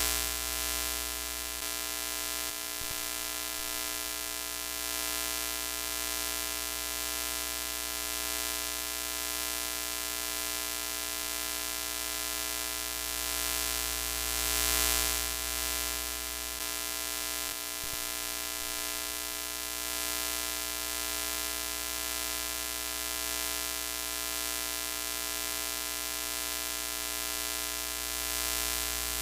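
Broken-TV sound effect: a steady buzzing electrical hum with many fixed tones under a hiss of static, swelling slightly in loudness about halfway through.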